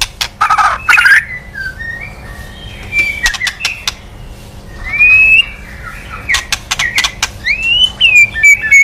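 White-rumped shama (murai batu) calling: short whistled notes that slide up and down, mixed with clusters of sharp, harsh clicking notes, in several bouts with brief pauses between them.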